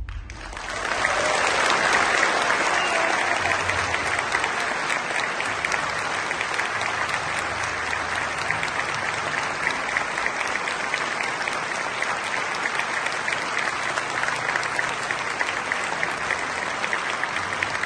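Large theatre audience applauding as a song ends. Many hands clapping together swell up within the first second, are loudest at about two seconds, then carry on steadily.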